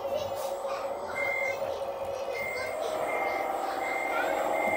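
RC Komatsu WA470 wheel loader's sound module giving its reversing beep as the loader backs up: a short high beep that repeats about every 0.7 s, starting about a second in, five times, over a steady engine hum.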